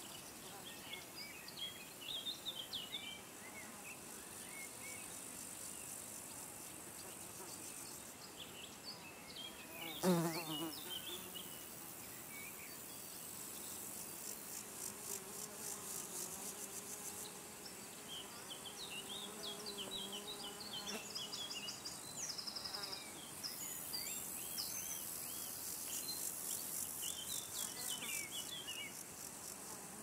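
Mountain meadow ambience: insects trilling in high, pulsing stretches, with scattered short bird chirps. About ten seconds in, a flying insect buzzes loudly past close to the microphone, its pitch falling as it goes by.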